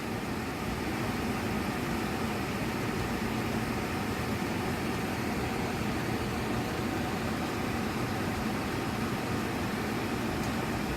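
Steady mechanical hum with no distinct clicks or knocks.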